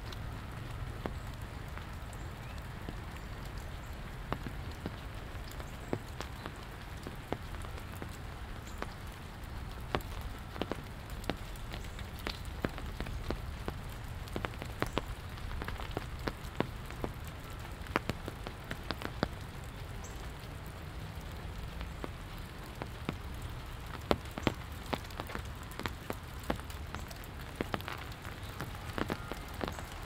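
Steady rain falling, with many irregular sharp drip impacts of drops landing close by over a low, steady rumble.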